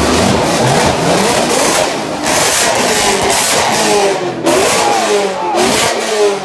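Car engines revving, their pitch climbing and dropping quickly several times, most often in the second half, over the steady noise of other running cars.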